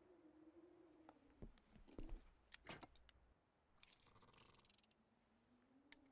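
Faint clinks and knocks of metal hand tools on a workbench, then a quick ratcheting rattle about four seconds in as a wrench works on a motorcycle part; a cartoon soundtrack's sound effects.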